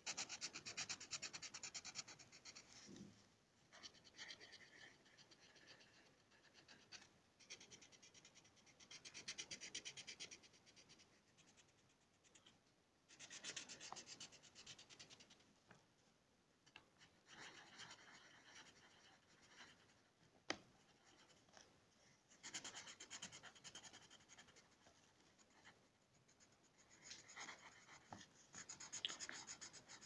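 Orange coloured pencil scratching on paper while small shapes are coloured in. It comes in faint bursts of quick back-and-forth shading strokes, each a couple of seconds long, with short pauses between. A single sharp tick is heard about two-thirds of the way through.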